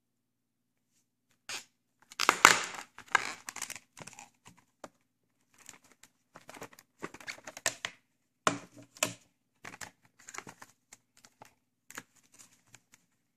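A white plastic VHS clamshell case being pried open and the cassette pulled out of it: a run of crackling, clicking handling noises that are loudest about two seconds in.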